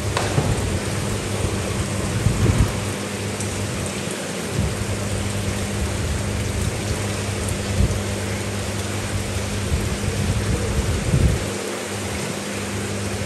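A steady hiss of splashing, falling water over a steady low electrical hum, typical of a fish tank's pump and filter return, with a few dull low knocks.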